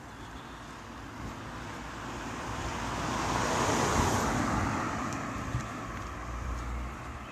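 A car drives past close by. Its tyre and engine noise rises to a peak about four seconds in, then fades as it moves off up the road.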